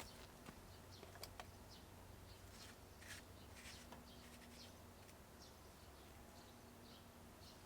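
Faint outdoor ambience with scattered short, high bird chirps.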